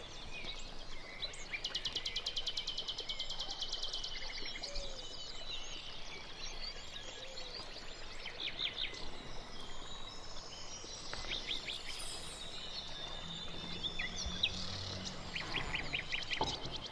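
Soundscape of birds chirping and calling over insect sounds. About two seconds in there is a fast, evenly pulsed high trill, and clusters of quick chirps follow later.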